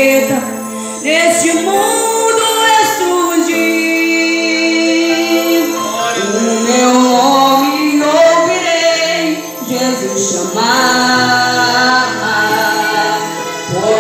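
Youth choir of girls and boys singing a gospel praise song together, holding long notes.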